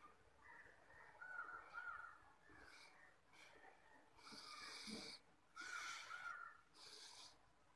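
Faint, quiet breathing of a person doing repeated forward-bend exercises: a series of short hissing breaths, roughly one every second, in the second half.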